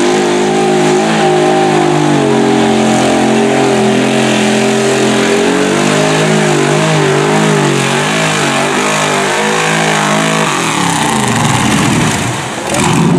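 Lifted mud truck on tractor tires running the mud bog pit at full throttle, its engine revving high and steady, then rising and falling in pitch as the tires bounce and spin in the mud. The engine note drops away about ten seconds in, leaving rougher tire-and-mud noise.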